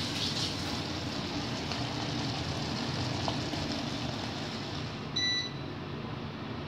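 Double induction cooker running at 2000 W under a wok of snails, with a steady hum and whir from its cooling fan, and one short electronic beep about five seconds in.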